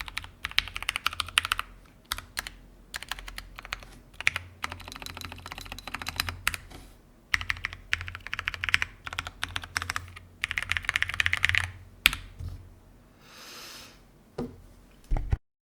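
Typing on a WorldSpawnKeebs Gothic50 mechanical keyboard with lubed and filmed Durock T1 tactile switches and plate foam. Fast runs of key presses come in bursts with short pauses, and a single louder keystroke falls about twelve seconds in. The sound cuts off just before the end.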